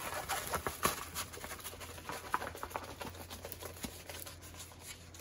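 Rustling and crackling of a rolled diamond painting canvas and its plastic cover being unrolled and handled, in scattered soft ticks that are loudest and thickest in the first second or so, then thin out.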